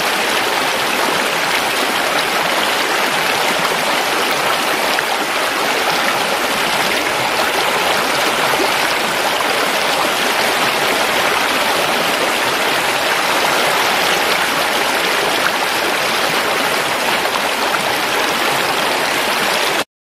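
Water of a shallow, rocky stream rushing and splashing over stones in a steady, even rush. It stops suddenly at the very end.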